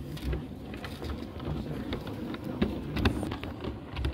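O gauge model diesel locomotive running along the track over a steady low rumble, with scattered sharp clicks as its wheels cross rail joints and points.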